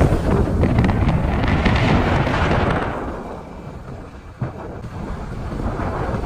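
Wind rushing and buffeting over the microphone on a moving vehicle, over a low road rumble. It is loudest for the first three seconds or so, then eases.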